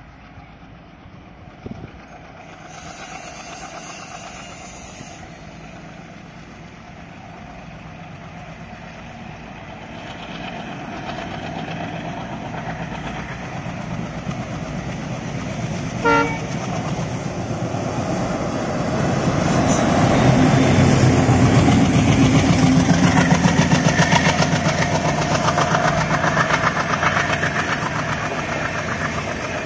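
Twin WDG3A diesel locomotives with ALCO engines working hard as they accelerate, their engine note growing steadily louder as they approach and pass, loudest about twenty seconds in. A short horn blast sounds about sixteen seconds in. Near the end the coach wheels clatter over the rail joints.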